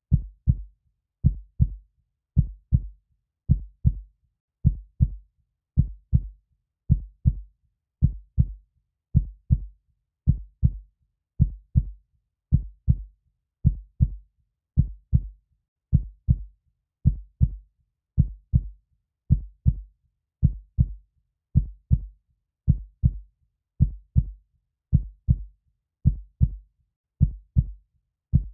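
Heartbeat sound: a steady lub-dub of paired low, dull thumps at a slow, even pace, a little under one beat a second, with silence between beats.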